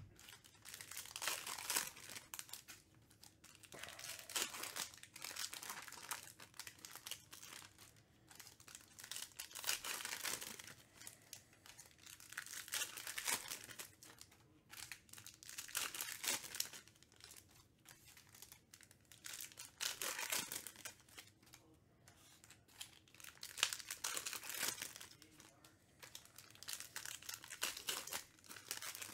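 Crinkly plastic wrapping of trading card boxes and packs being torn open and crumpled by hand, in repeated bursts of a second or two.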